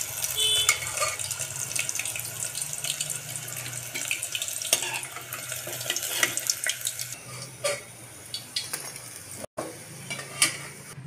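Hot oil sizzling and crackling around deep-fried chicken nuggets as they are lifted out with a steel spoon, with the spoon clinking and scraping against the aluminium pot. The crackling is densest over the first several seconds and thins out after that.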